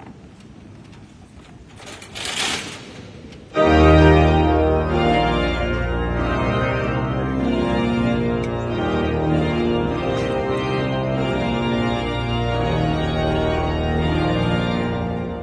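Pipe organ starting up about three and a half seconds in, playing full, sustained chords over deep bass notes. Before it, only low room noise and a brief hiss about two seconds in.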